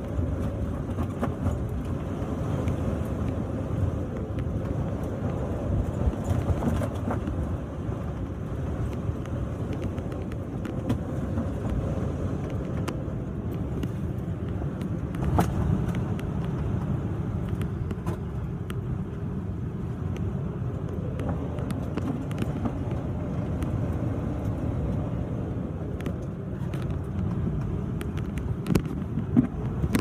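Strong wind of about 35 knots buffeting the microphone on a sailboat's deck, a steady low rumble mixed with the rush of a rough, breaking sea, with a louder gust about fifteen seconds in and scattered faint ticks.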